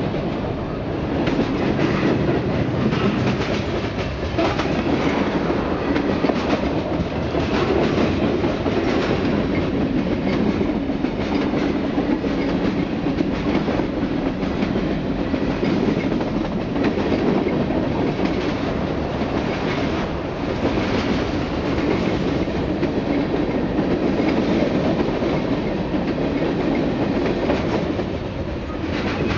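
Freight train rolling past close by, with autorack and covered hopper cars going by: a steady rumble of steel wheels on the rails with repeated clickety-clack clatter.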